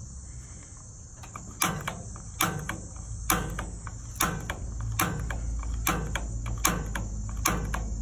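Piezo igniter on a gas water heater's Eurosit 630 gas valve clicking repeatedly, about one sharp snap every 0.8 s starting about a second and a half in, sparking to light the pilot flame while the gas control button is held down.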